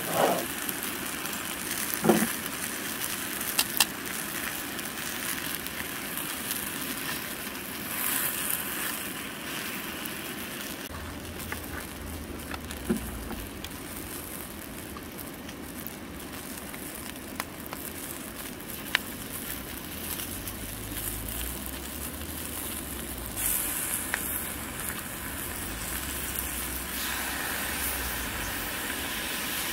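Portobello mushrooms and yellow capsicum sizzling steadily in a frying pan on a portable gas stove, with a few light clicks.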